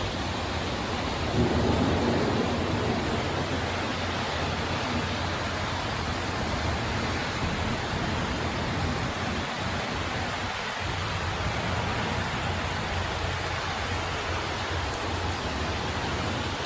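Heavy, torrential rain pouring down in a steady hiss during a thunderstorm, with a louder low rumble of thunder swelling about a second and a half in.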